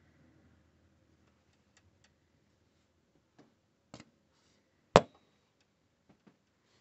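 A few scattered clicks and knocks of handling against a computer case's metal, with one much louder, sharp knock about five seconds in; the rest is quiet.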